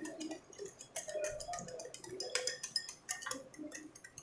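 Wire whisk beating an egg, sugar and vanilla mixture in a glass bowl, its metal wires clicking quickly and unevenly against the glass.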